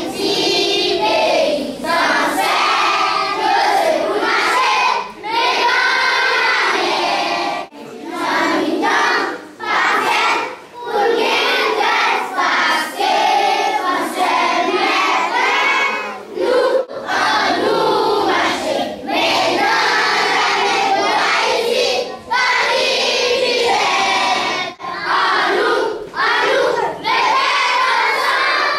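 A large crowd of schoolchildren singing together loudly, phrase after phrase with short breaks between.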